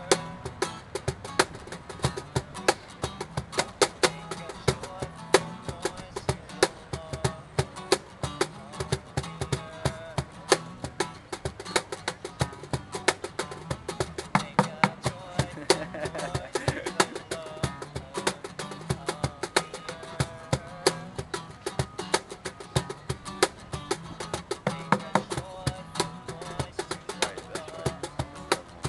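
Acoustic guitar strummed together with a hand-played Meinl cajón keeping a steady beat of sharp slaps, a live acoustic guitar-and-percussion duo.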